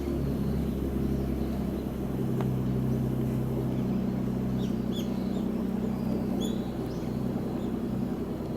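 A steady low mechanical hum, with several short, high bird chirps around the middle.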